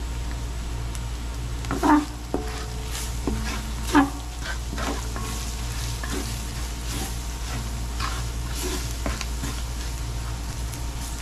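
Wooden spoon stirring and scraping curry powder, onion and seasoning frying in oil in a large aluminium pot, in irregular strokes, the loudest about two and four seconds in, over a steady low hum.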